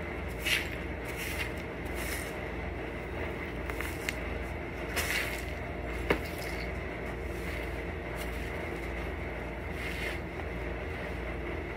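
Push broom bristles sweeping broken rubble and dust across a concrete floor in a few swishing strokes, with one sharp click about six seconds in.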